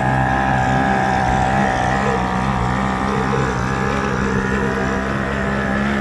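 Small outboard motor running steadily under throttle, driving a small boat carrying two people.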